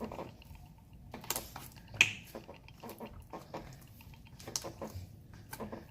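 Runny, watery slime being squeezed and kneaded by hand, making irregular sticky clicks and squelches, with one louder pop about two seconds in.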